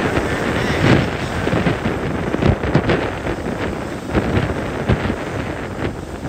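Strong wind buffeting the microphone in uneven gusts, over waves breaking against the rocks of a lakeshore.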